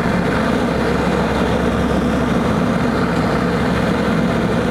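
Steady engine and rushing-air noise of an airliner heard from inside the cabin during descent, with a constant low drone.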